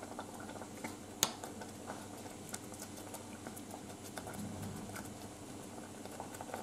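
Sweet red bean soup simmering in a saucepan while a metal spoon stirs it, with many light clicks and scrapes of the spoon against the pan and one sharper clink about a second in.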